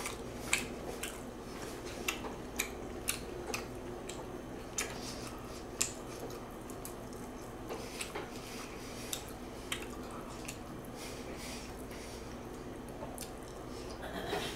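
Person eating close to the microphone: wet chewing and lip-smacking clicks, scattered irregularly, with now and then a light clink of cutlery, over a steady low hum.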